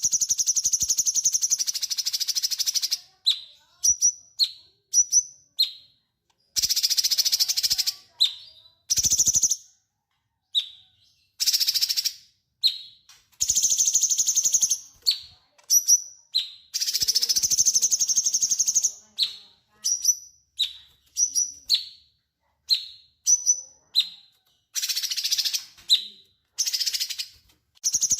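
Cucak cungkok, a bulbul, singing vigorously. Long, rapid, harsh trilled phrases of about two seconds alternate with runs of short, high chirps, repeated throughout.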